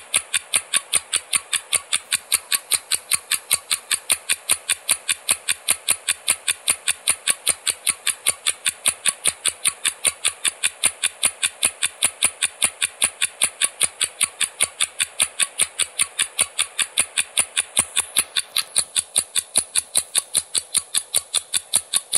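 Clock-tick countdown sound effect of a quiz timer: even, sharp ticks at about four a second, marking the time left to answer the question.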